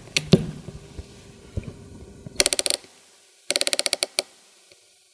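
Ericsson T2600 crimping tool being worked by its lever to crimp a copper splice clamp onto cable. A few knocks come first, then two quick runs of sharp clicks from the tool's mechanism, each well under a second long and about a second apart.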